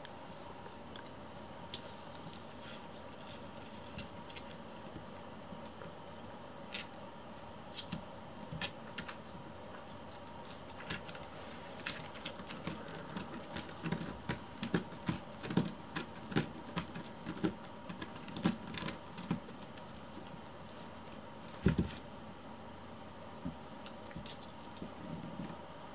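Kittens play-fighting: scattered light taps, scuffs and scrabbling of small paws and claws on a floor mat and a cardboard scratcher, busiest in the middle, with one heavier thump late on as a kitten tumbles.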